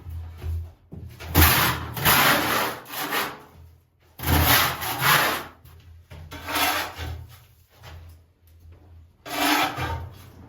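Rough scraping or rubbing strokes in four separate bursts, each lasting between half a second and two seconds, with short pauses between them.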